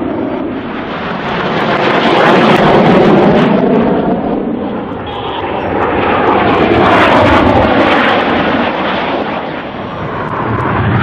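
BAE Hawk T1 jets flying past in formation, the noise of their turbofan engines swelling and fading twice and building again near the end as the aircraft pass.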